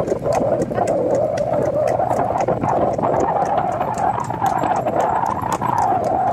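A bull pulling a cart at a trot on a paved road: hooves clopping and the cart clattering several times a second, over a steady wavering drone.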